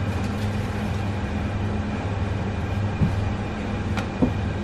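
Steady low machine hum, with a few light knocks about three and four seconds in from a knife skinning a fish fillet.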